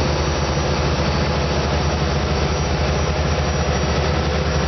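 A fishing boat's engine running steadily, a constant low hum under an even hiss.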